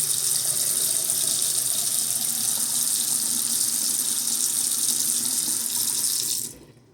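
Bathroom sink faucet running steadily into the basin to test a freshly unclogged drain, shut off abruptly about six and a half seconds in.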